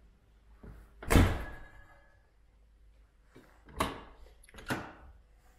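Car door of a 1992 Daimler Double Six Series III shut with one loud, solid thunk about a second in. Two lighter knocks follow near the end, like the door latch and handle being worked.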